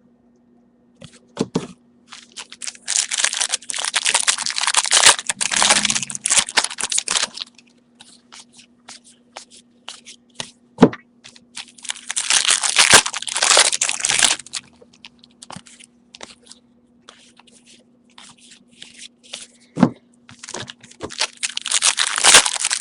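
Trading-card pack wrappers being torn open and crinkled, in three long crackling stretches with scattered clicks of handling between them.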